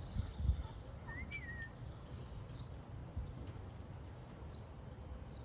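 Quiet outdoor ambience with a steady low rumble and a couple of soft bumps at the start, and a single short bird chirp that rises and falls about a second in.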